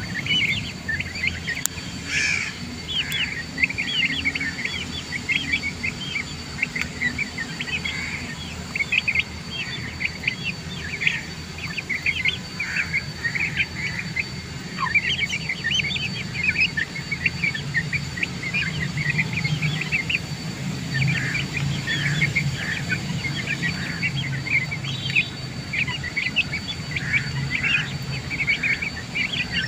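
A brood of half-grown chicks peeping: many short, high peeps overlapping, several a second, without a break.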